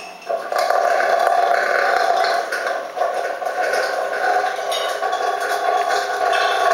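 Hail and heavy rain pelting down, a dense, steady stream of small hits.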